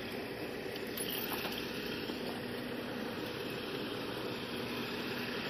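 Faint, steady engine hum of a vehicle idling nearby.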